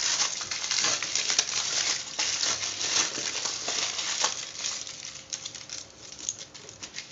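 Aluminium foil being crumpled and pressed around the rim of a lidded container: a dense crinkling that thins to scattered crackles after about four seconds.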